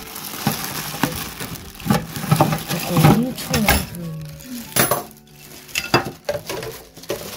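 Plastic wrapping crinkling and rustling as it is pulled off an air fryer oven's metal trays, with irregular clinks of the metal trays and racks knocking against the oven's rails.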